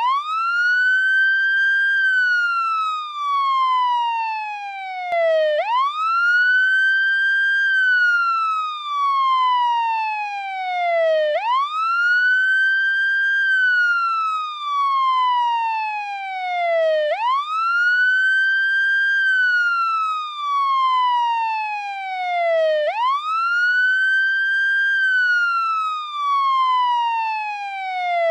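American police car siren sounding its wail: a single howling tone that climbs quickly, then falls slowly back down, repeating about every five and a half seconds.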